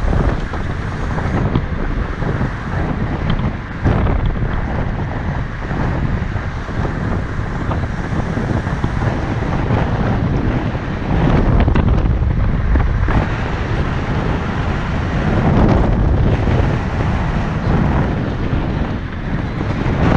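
Wind buffeting the microphone of a camera mounted on the outside of a moving car. Under it runs the car's road noise. It is a loud, steady rushing that swells and dips, louder for a few seconds in the second half.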